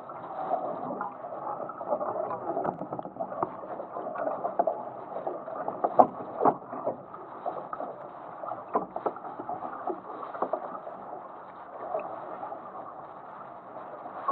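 Water rushing and splashing along a Musto skiff's hull under sail, with irregular sharp slaps of water throughout.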